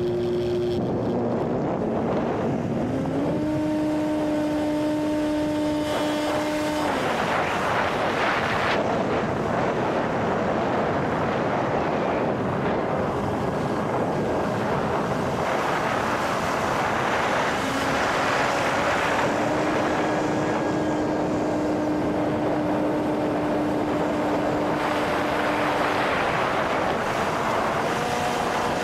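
Small electric RC airplane's motor and propeller humming, the tone stepping up and down in pitch and dropping out as the throttle changes, over heavy wind rush on the microphone.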